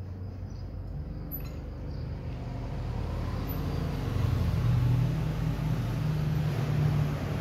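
Low rumble of a motor vehicle's engine, growing louder a few seconds in.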